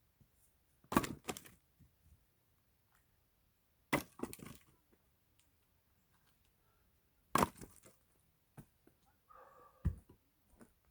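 Axe strikes splitting firewood logs: three heavy blows about three seconds apart, each followed by the crack and splinter of wood giving way, then a duller knock near the end.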